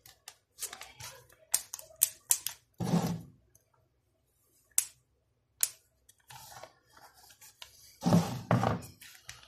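Zip-lock plastic bag being pressed shut and handled: crinkling plastic with scattered sharp clicks and snaps from the zip seal. There are two longer rustles, about three seconds in and again near the end.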